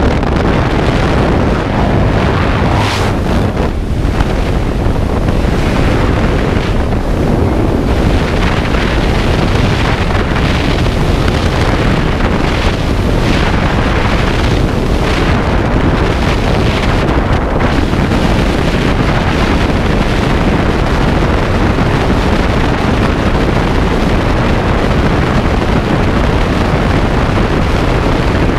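Loud, steady rush of wind over the camera microphone during a skydiver's freefall, beginning in the slipstream while hanging from the wing strut of a small high-wing plane.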